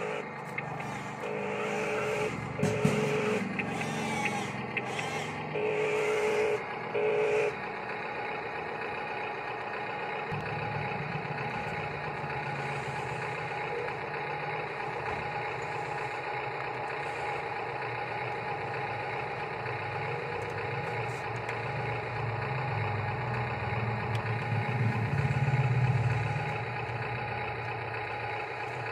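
Radio-controlled toy construction machines running: five short electronic beeps in the first seven or so seconds over a steady whir of small electric motors and gears, the whir swelling about 25 seconds in as the toy dump truck drives.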